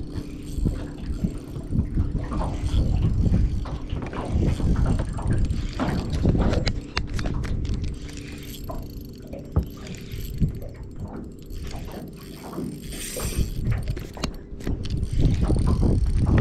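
Spinning reel being wound and ticking while a hooked fish is fought in, over a heavy rumble of wind on the microphone.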